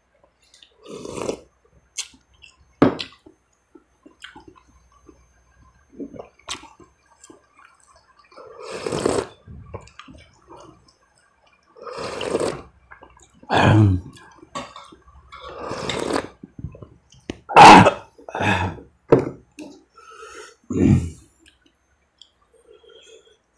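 A man slurping hot soup broth from a bowl held to his mouth: about a dozen noisy slurps and sips with short gaps between them, the loudest about two-thirds of the way in.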